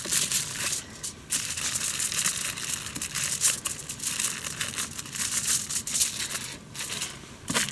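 Several layers of aluminium foil being crinkled and folded by hand, shaping the rims of a makeshift frying pan. There are short pauses about a second in and again near the end.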